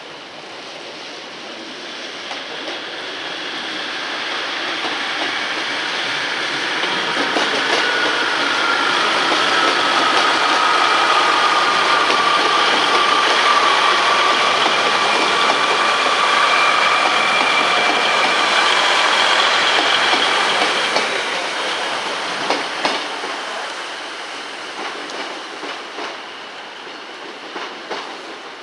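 A train passing, its sound building up over about ten seconds and then fading, with high steady tones over the rumble while it is loudest. Sharp clicks of wheels over rail joints come near the end.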